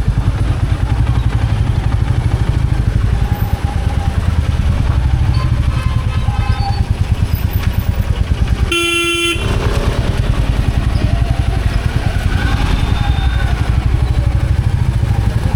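Royal Enfield Bullet 350's single-cylinder engine thumping steadily on the move. A vehicle horn honks once, briefly, about nine seconds in.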